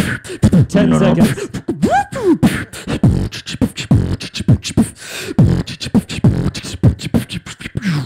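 A beatboxer performing into a microphone through a PA: a fast rhythm of kick- and snare-like clicks and thumps, mixed with gliding vocal bass sweeps and buzzing tones. It stops suddenly at the end.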